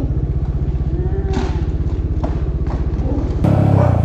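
Single-cylinder motorcycle engine running steadily at an even, low speed, with a few short knocks or clicks over it. It gets abruptly louder near the end.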